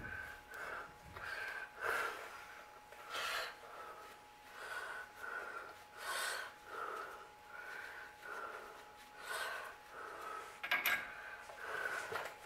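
A man's wheezy breathing close to the microphone, a short whistling puff on each breath in and out, repeating evenly: a stuffed-up nose from allergies. A sharp metallic click comes near the end.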